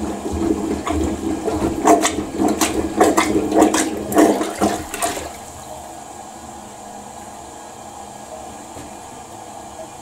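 Rubber plunger worked in a toilet bowl to check that a clogged drain is clear: water splashes and sloshes with each stroke for about five seconds, then stops, leaving a quieter steady hiss.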